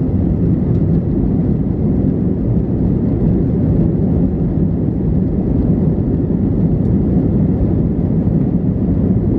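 Cabin noise in an Airbus A321 taxiing: a steady low rumble from the engines and the aircraft rolling along the taxiway.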